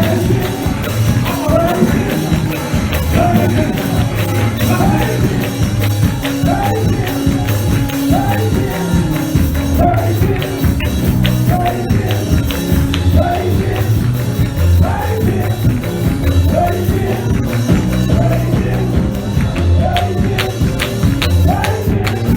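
Upbeat worship music with a steady beat: a band with heavy bass and busy percussion, played without a break.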